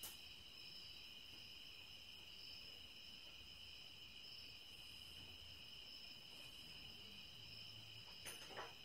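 Near silence: faint room tone with a steady high-pitched ringing of a few tones, and two faint clicks near the end.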